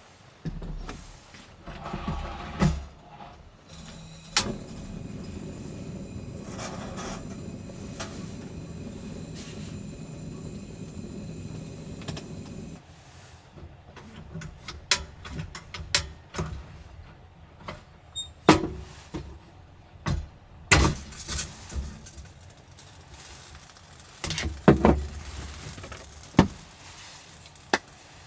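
Scattered clicks and knocks of objects being handled, with a steady low rushing noise for about eight seconds in the first half that cuts off abruptly.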